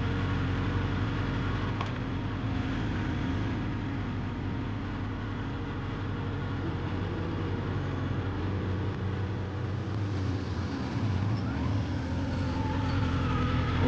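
Steady motor-vehicle engine hum with road traffic noise.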